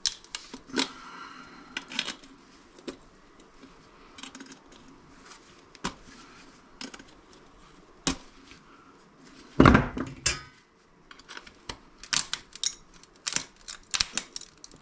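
Hard plastic and metal clicking and clattering as an electronic device's circuit board is handled and pried at to free it. There is one louder knock about ten seconds in and a quick run of clicks near the end.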